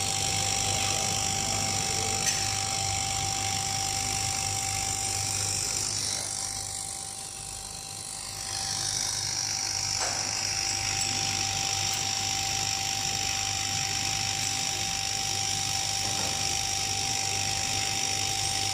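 Richpeace CNC sewing machine's laser cutting unit running: a steady high whine over a hiss of air, with a low hum underneath. The hiss dips briefly about six to eight seconds in, then carries on.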